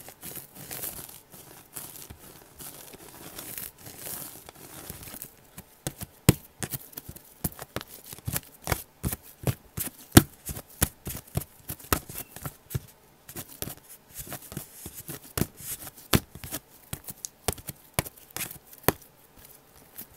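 Slime being handled, squeezed and stretched, giving a run of sharp clicks and pops that grow much denser about five seconds in.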